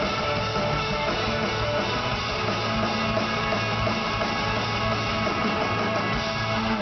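Live rock band playing loudly, with electric guitars, bass guitar and drums, heard from within the audience.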